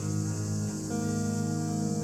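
Guitar music with sustained chords that change to new notes about a second in.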